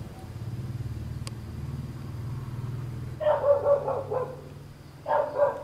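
Dog barking: a run of quick barks about three seconds in and a shorter run near the end, over a low steady hum.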